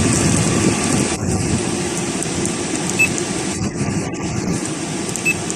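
12-volt parking air conditioner running steadily in energy-saving mode, a constant whoosh of its fan and air flow.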